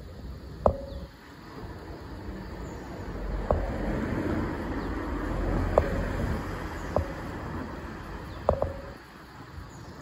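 A passing vehicle: a low rumble that swells through the middle and fades near the end, with six sharp clicks scattered through it, most with a brief ringing tone.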